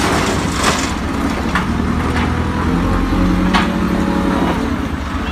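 JCB backhoe loader's diesel engine running as its front bucket tips rubble and dirt into a trailer, with the rocks clattering down and a few sharp knocks.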